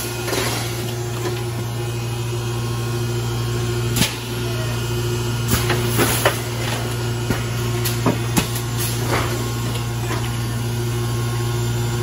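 Steady hum of industrial machinery on a plant floor, with scattered sharp clicks and knocks.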